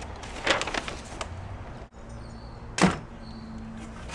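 Paper and envelopes rustling and shuffling as hands sort through a cardboard box of paperwork, with one sharper, louder sound about three seconds in.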